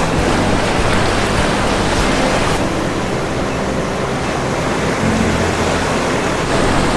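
Ocean surf washing around shoreline rocks, a steady rushing wash.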